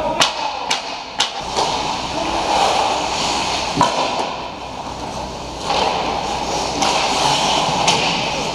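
Ice hockey skates scraping and carving on the rink ice, swelling and fading as players move near the net, with sharp clacks of sticks and puck: three quick ones about a second in, another about four seconds in.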